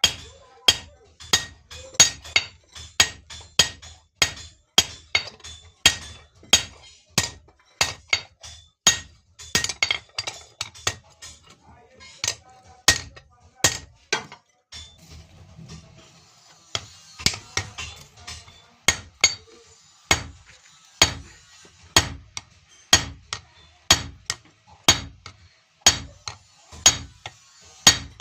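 Blacksmith's hand hammer striking iron on an anvil, forging a blade: steady blows about twice a second, each with a bright metallic ring. A stretch of hiss sits between the blows around the middle.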